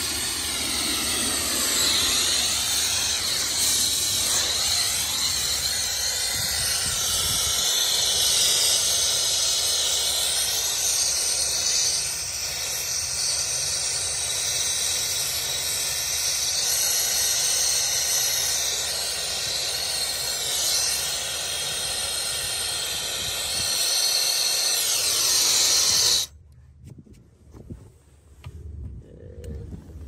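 Brazing torch burning with a steady hiss as a copper refrigerant line is silver-soldered onto a heat pump's service valve. The hiss cuts off abruptly a few seconds before the end.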